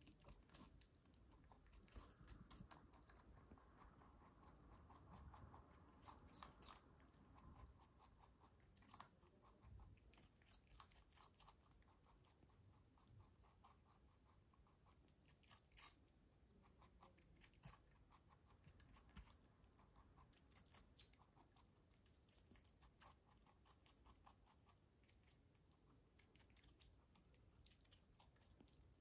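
White lop rabbit biting and chewing a whole cucumber: a run of faint, irregular crunches.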